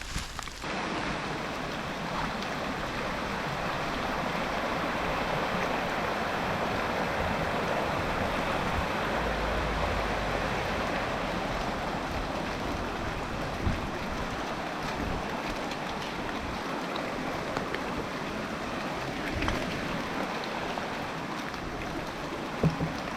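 Steady rushing of water, a continuous even hiss that swells slightly midway, with a few faint knocks.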